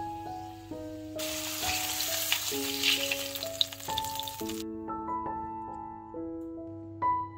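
Pork steak sizzling in vegetable oil in a frying pan, from about a second in until it cuts off sharply about four and a half seconds in, over background piano music.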